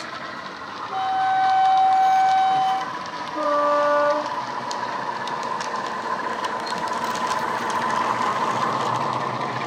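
Heljan Class 45 model diesel locomotive's DCC sound decoder, running a Legomanbiffo sound file through an EM1 speaker. It sounds a two-tone horn: a long higher note about a second in, then a shorter lower note. Under the horn the steady diesel engine sound grows louder as the model approaches.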